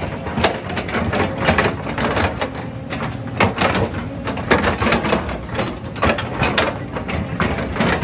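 JCB tracked excavator working: the engine runs steadily under a string of irregular scrapes, knocks and clatters as the steel bucket works rock and soil.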